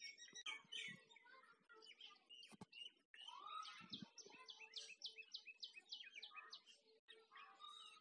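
Faint birdsong: several birds chirping, with one singing a fast run of repeated downward-sweeping notes, about four a second, through the middle. A faint steady hum runs beneath.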